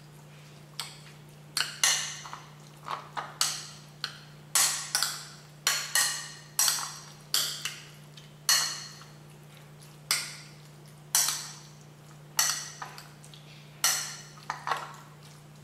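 A utensil clinking against a bowl while sliced pork is mixed in its soy and rice-wine marinade. The clinks are sharp and irregular, often in twos and threes, and each rings briefly.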